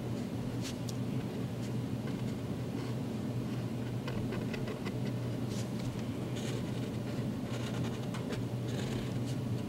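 Black Sharpie permanent marker drawing on paper: short, irregular strokes of the felt tip, more of them in the second half. Under them runs a steady low hum.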